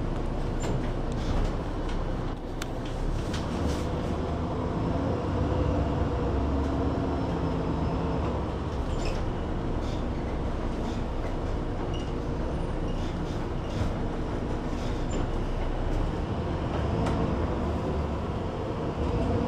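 A city bus's diesel engine and road noise heard from inside the bus as it drives along, with a steady low rumble and occasional short clicks and rattles.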